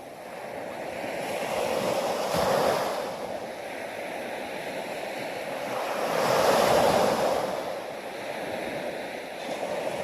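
Ocean waves surging and washing, two swells building and falling away, the first peaking about two and a half seconds in and a louder one around six to seven seconds.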